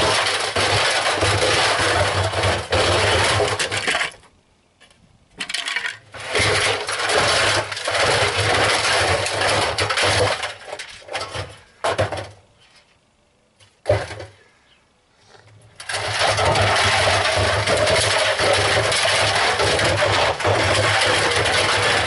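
LG front-loading washing machine running with loose debris in its drum: loud clattering and rattling over a steady motor hum. The noise cuts out twice, from about four to six seconds and from about twelve to sixteen seconds, with a single sharp click during the second pause, then starts again.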